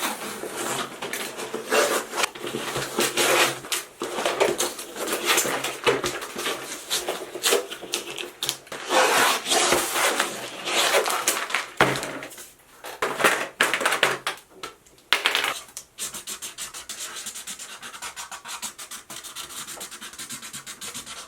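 Small broken wooden pieces scraped, rubbed and rattled across a tabletop, in irregular bursts of scratching and clatter that turn quieter and finer for the last few seconds.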